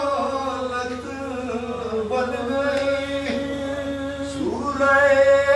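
A man chanting a Salaam, a devotional Urdu poem, in a melodic recitation style, holding long sliding notes. His voice glides up and grows louder near the end.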